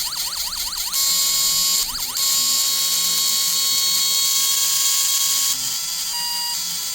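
RC horn sound module playing siren effects through its small speaker, smothered in loud static hiss: a fast repeating rising whoop, about five sweeps a second, switches about a second in to a steady tone under even louder hiss, then near the end to on-off beeping. The heavy static is the module's fault, a sound the owner calls garbage.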